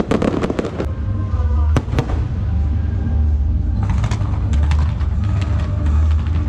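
Fireworks going off: a few sharp bangs in the first two seconds, then a rapid string of crackling pops from about four seconds in, over a heavy low rumble.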